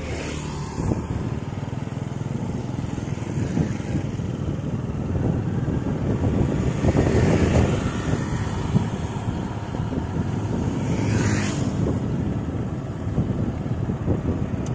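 Road traffic: motor scooters passing close by, one about seven to eight seconds in and another about eleven seconds in. Under them runs a steady low rumble of engine and road noise.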